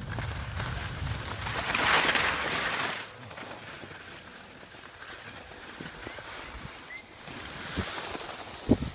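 Skis hissing and scraping over snow with wind buffeting the microphone, loudest about two seconds in, then dropping off sharply after about three seconds; a single sharp knock near the end.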